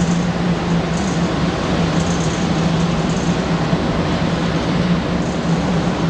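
Camera drone's propellers humming steadily at one low pitch over a constant rushing noise.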